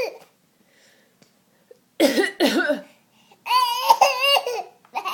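A baby making short, rough imitation coughs about two seconds in, followed by a longer high-pitched voiced sound whose pitch wavers up and down.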